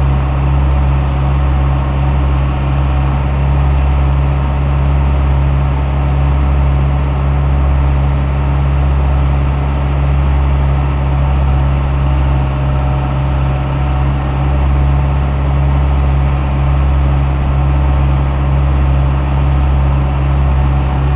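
Diesel engine of a Daewoo 75V compact excavator running steadily with a low drone while its arm and bucket work the trench.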